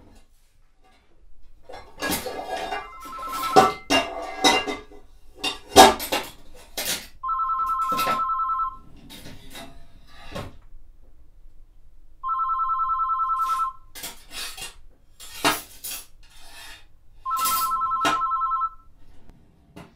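Philips DECT 215 cordless phone ringing four times, each ring a warbling electronic trill of about a second and a half, repeating about every five seconds. Loud clattering knocks come in the first several seconds, under the first ring.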